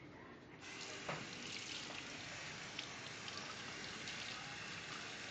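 Kitchen faucet turned on about half a second in, water running steadily over a fish held in the hand and splashing into a stainless steel sink.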